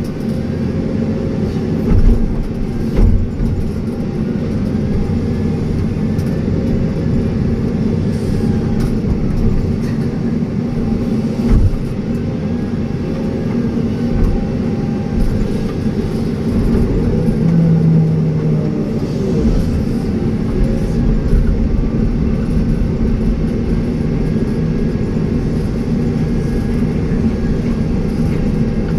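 Excavator's diesel engine running steadily under working load, with a faint whine that rises and falls repeatedly and a few sharp knocks.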